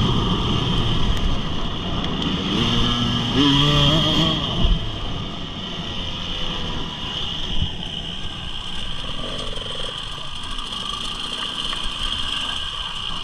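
Motorcycle engine revving, its pitch rising and falling several times, then running lower and steadier after about four seconds.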